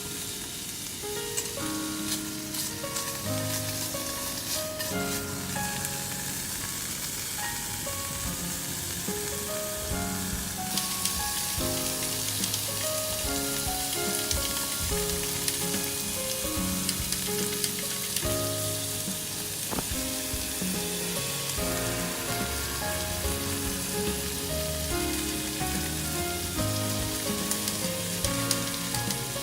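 Food frying with a steady sizzle that grows louder about a third of the way in, under background music with a simple melody.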